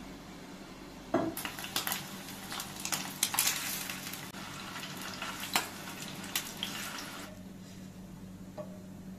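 Kitchen cooking sounds: metal utensils clattering against pots and pans with a hiss, starting about a second in and dying down about seven seconds in.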